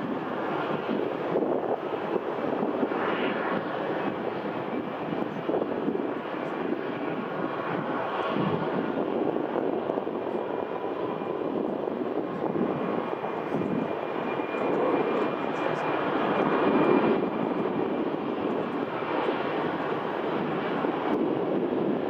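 Distant jet airliner engines at taxi power: a steady rush with a faint high whine in the middle.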